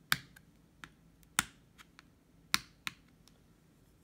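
A paintbrush tapped against the handle of another brush: a series of sharp, irregularly spaced clicks, a few loud and several faint. Each tap flicks spatters of thinned watercolor paint onto the paper.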